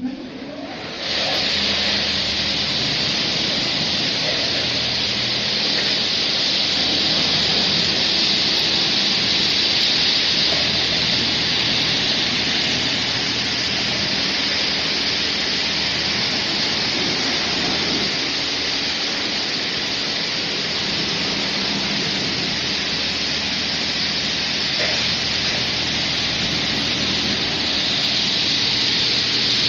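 Touchless car wash machine spraying high-pressure water jets in a steady, loud hiss, with a low pump hum underneath. It starts about a second in.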